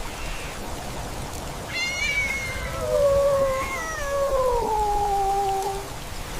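Kitten meowing: two long, drawn-out meows, each sliding down in pitch, over a steady hiss.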